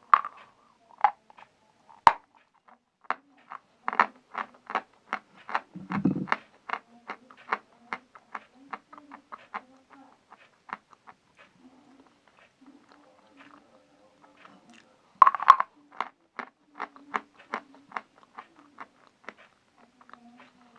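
Edible chalk being chewed close to the microphone: a steady run of soft crunching clicks, about two a second, with a louder crunch about fifteen seconds in.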